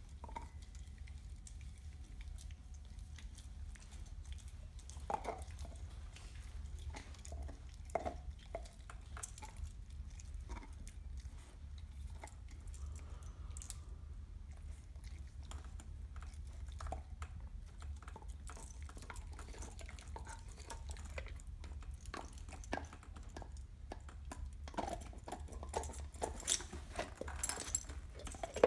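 A dog gnawing and chewing a raw cross-cut bone: irregular crunches and clicks of teeth on bone. The crunching grows busier near the end.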